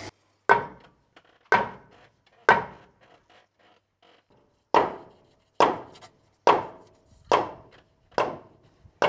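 Mallet striking a wooden log, driving it down into its groove to seat it: three blows about a second apart, a short pause, then a steady run of six blows.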